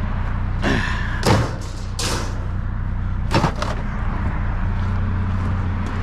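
Several bangs and knocks, the loudest about a second in and again about three and a half seconds in, over a steady low engine hum.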